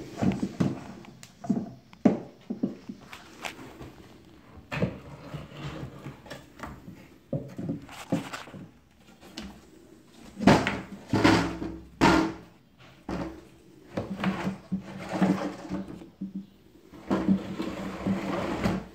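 Old wooden sash window being worked in its frame: irregular wooden knocks and scraping as the re-hung sash slides and bumps against the jamb, with the loudest stretches of sliding in the second half.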